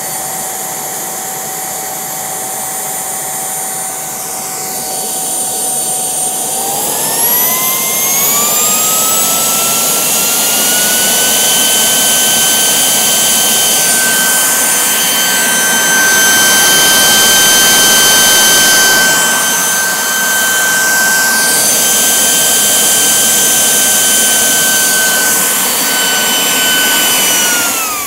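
Homemade Kamps-design gas turbine running on kerosene, a steady high whine with rushing exhaust. About six seconds in the whine climbs over several seconds to roughly twice its pitch as the fuel pump is run up to full speed, then holds. Near the end the pitch falls sharply as the turbine spools down.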